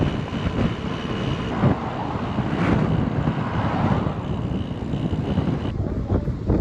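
Wind buffeting and rushing over the camera microphone while riding a bicycle along the road, with a thin steady high whine under it. Near the end it changes abruptly to gustier wind on the microphone.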